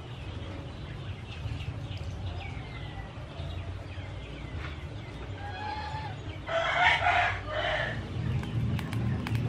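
A rooster crows once, about two-thirds of the way in; this is the loudest sound. Small birds chirp faintly before it, and a knife taps on a wooden cutting board near the end.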